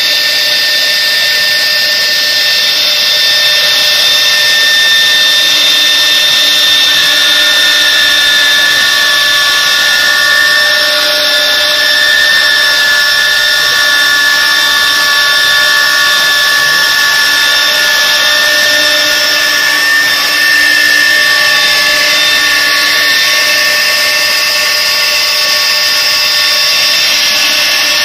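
Twin 3 kW spindles of a double-head CNC router running at speed and cutting MDF: a steady high whine over the hiss of the cut. A second set of lower steady tones comes in about seven seconds in and drops out a little after twenty seconds.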